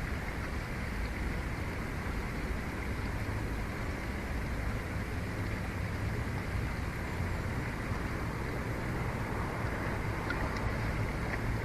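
Steady wind noise on an outdoor nest-cam microphone: a low rumble with a hiss over it.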